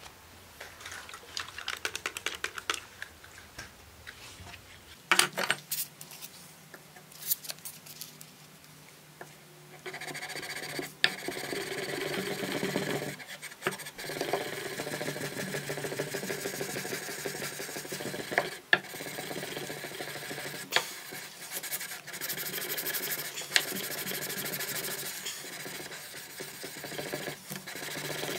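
1200-grit sandpaper on a hand block rubbing across a heat-treated steel knife blade. Short scratchy strokes and handling clicks come first, then steady back-and-forth sanding strokes from about a third of the way in.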